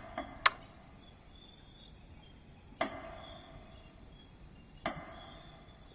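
A cricket trilling as one steady high tone, starting about two seconds in, with three sharp clicks spaced about two seconds apart.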